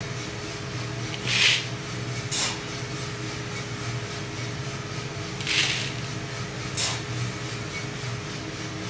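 Metal scoop digging into a sack of green coffee beans and tipping them into a plastic bucket: short rasping rattles of beans, two pairs of them, over a steady low hum.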